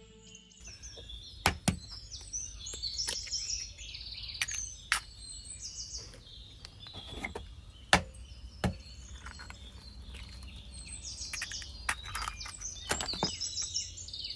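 Small birds chirping and singing, with a series of sharp knocks at irregular intervals, the loudest about two seconds in and about eight seconds in.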